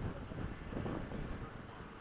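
Wind buffeting the microphone, a low gusty rumble that rises and falls.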